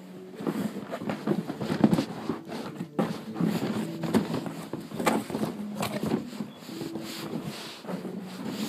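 Rustling and frequent small clicks and knocks as items and packaging are handled.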